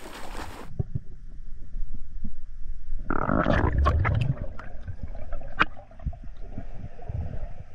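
Water splashing from a spearfisher finning on the surface, which cuts off under a second in to muffled underwater sound from a camera in its housing: low rumbling and knocks, loudest from about three to four and a half seconds in, with scattered sharp clicks.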